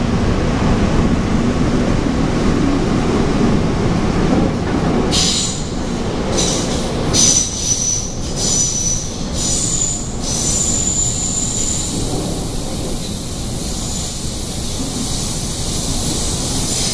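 An MTR Tseung Kwan O Line K-train heard from inside the car while running: a steady low rumble of wheels on rail throughout. From about five seconds in, a high-pitched wheel squeal comes and goes in short stretches, then settles into a thinner, steady high squeal near the end.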